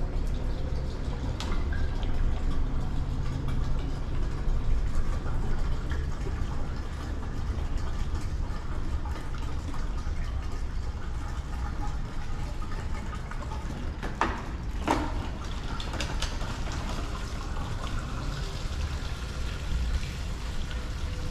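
Distilled water pouring steadily from a plastic gallon jug into a plastic utility jug, filling it to mix a water-based racing coolant. A couple of sharp clicks come about two-thirds of the way through.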